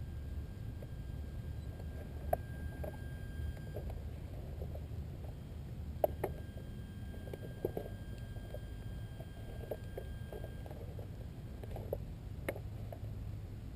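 Low steady rumble of wind and handling noise on the microphone, with scattered faint clicks and rustles and a few sharper ticks; no aircraft motor is heard.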